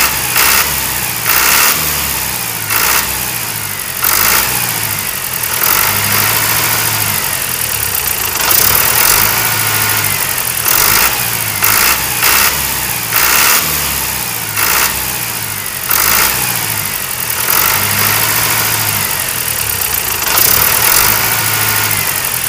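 Tractor engine running with a pulsing beat and repeated brief surges every second or two.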